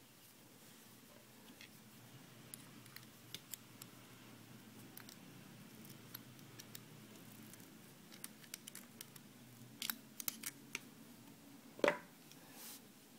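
Faint scattered clicks and ticks of thin steel wire and needle-nose pliers being handled against a small wooden dowel, with a cluster of clicks about ten seconds in and a sharper knock near the end.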